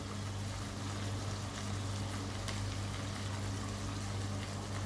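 Chicken and baby corn sizzling steadily in a pan as the dish cooks down dry, over a constant low hum.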